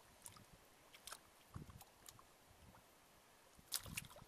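Faint sloshing and small splashes of hands working in shallow water, grabbing at fish, with a louder splash near the end as the hands churn the water.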